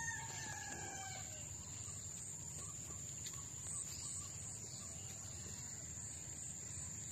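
A rooster crowing: the drawn-out end of a crow, fading out about a second and a half in. Behind it runs a steady high buzz of insects.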